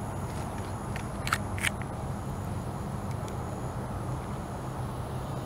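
Steady low outdoor background hum with handheld camera handling noise, and two short clicks about a second and a half in.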